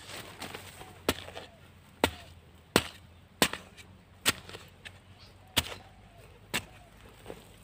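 A digging tool chopping into soil matted with lalang grass roots: about seven sharp strikes, roughly a second apart, as clods of earth are lifted and thrown aside.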